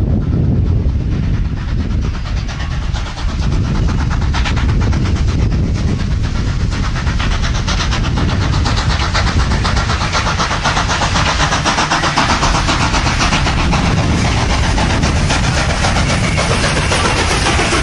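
South African Railways Class 19D steam locomotive working a passenger train, its exhaust beating in a fast, even run of chuffs over a heavy low rumble, growing stronger as it draws near.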